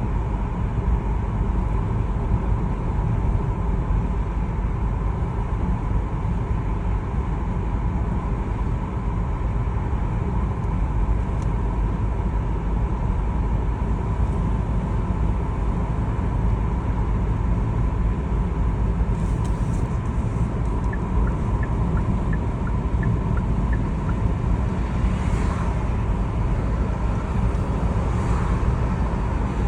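Car driving along a road: steady engine and tyre noise, even in level throughout.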